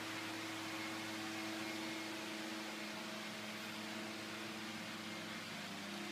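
Steady mechanical hum: an even hiss with a low drone and a few held tones, unchanging throughout.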